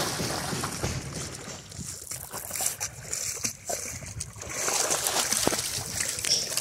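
Water splashing and sloshing as a dog jumps into a swimming pool and swims through it.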